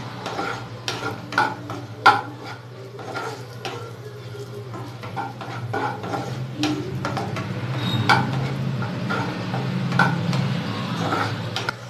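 A wooden spatula stirring cashews and raisins frying in ghee in a non-stick pan, with irregular scrapes and taps against the pan, the sharpest about two seconds in, over a low sizzle of the frying.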